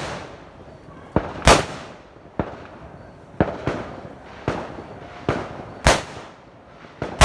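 Fireworks going off: about ten sharp bangs at uneven intervals, each trailing off in a short echo.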